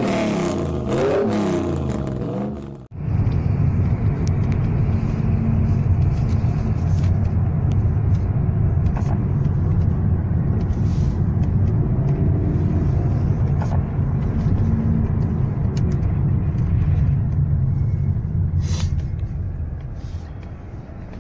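Music for about three seconds, then a sudden cut to the steady low rumble of a Toyota Camry Gracia's 2.5-litre 2MZ-FE V6 engine running, heard from inside the cabin.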